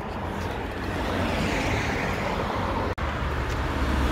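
Road traffic on a busy street, cars driving past in a steady wash of tyre and engine noise, with a low rumble that swells near the end and wind buffeting the microphone. The sound cuts out for an instant about three seconds in.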